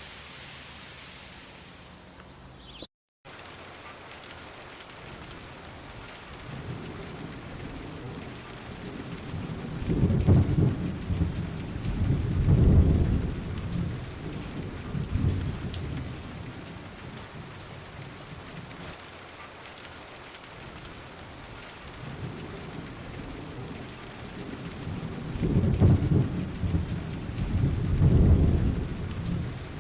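Steady rain with thunder rumbling in two spells, each of several deep swells. The sound drops out briefly about three seconds in.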